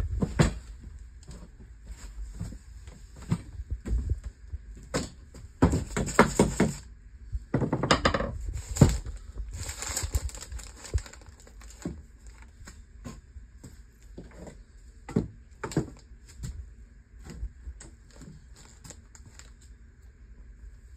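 Irregular knocks and clatter of timber studs and tools being handled during stud framing, with two longer stretches of scraping noise about six and eight seconds in.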